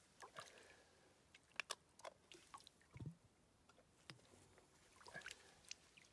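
Plastic water bottle dipped into a shallow pond and filled: faint gurgles and small splashes with several sharp clicks, and a dull knock about three seconds in.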